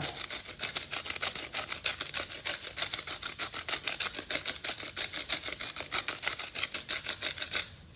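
Hand pepper mill grinding black pepper: a fast, steady run of dry crunching clicks that stops near the end.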